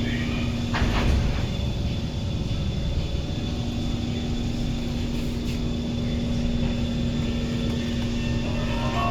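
Interior of a C151 MRT train car pulling away: a steady low rumble with a constant motor tone, and a single clunk about a second in.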